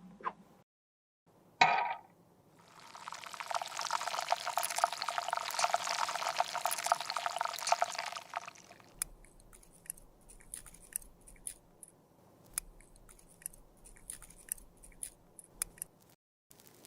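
A sharp tap, then about six seconds of dense, crackling pouring as cosmetic material is tipped out, followed by scattered light clicks and taps of small tools and containers.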